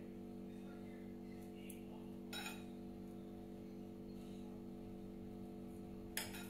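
Metal spoon clinking against a glass bowl twice, once a couple of seconds in and more sharply near the end, while sauce is ladled out, over a steady low electrical hum.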